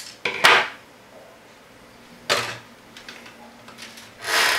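Hands handling the hookup wires and brushing over the plastic Lite Brite case: three short rustling swishes, the loudest just after the start, one about two seconds in, and a longer one near the end.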